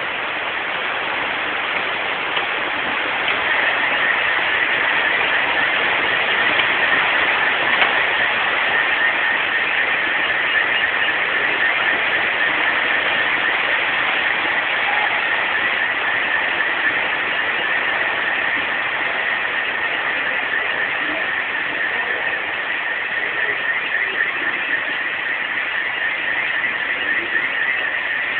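Heavy rain falling steadily, an even hiss with no separate impacts.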